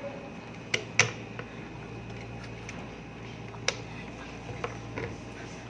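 A handful of short, sharp clicks and light knocks, about five spread irregularly, the loudest about a second in, over a steady low hum.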